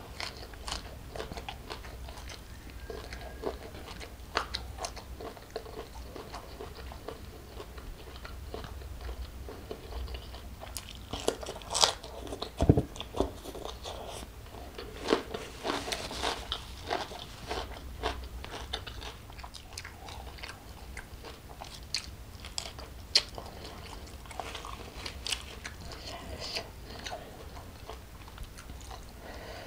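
Close-miked eating sounds: wet chewing and crunching of raw leafy greens and jumbo shrimp, with many short, sharp crunchy bites. The loudest crunches come in clusters about a third and halfway through.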